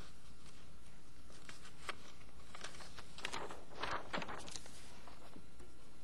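Sheets of paper being handled and shuffled, a run of light rustles and taps, busiest about three to four seconds in, over a low steady hum.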